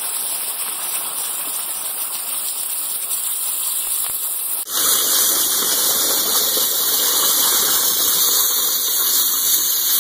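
Flow Mach 500 waterjet running at 20,000 psi, cutting a pumpkin: a steady, loud hiss of the high-pressure jet with water splashing in the catch tank. About halfway through the sound drops out for an instant and comes back louder.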